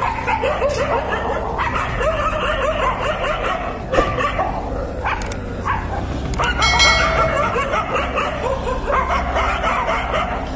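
A pack of Indian street dogs barking and snarling at one another in a standoff, many voices overlapping without a break.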